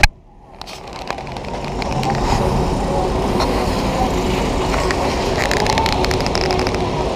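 Steady outdoor background noise of the amusement park, rising over the first two seconds and then holding level, with a few faint clicks.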